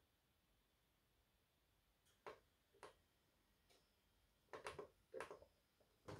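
Near silence, broken by a few faint, short clicks from the front-panel push buttons of an Allpowers portable power station being pressed, two single clicks about two and three seconds in and a small cluster near the end.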